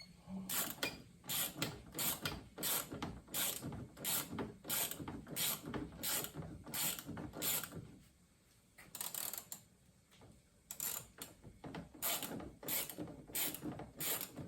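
Ratchet turning a T20 Torx bit to back out a bolt inside a car door, clicking in short runs about one and a half strokes a second, with a pause of about a second just after the middle.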